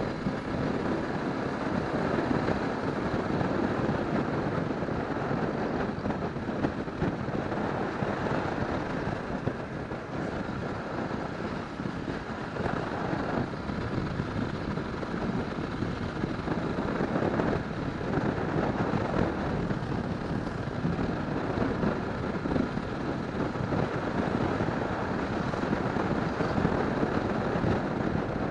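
Steady wind rush and motorcycle running noise on a handlebar-mounted camera's microphone while riding along at an even speed.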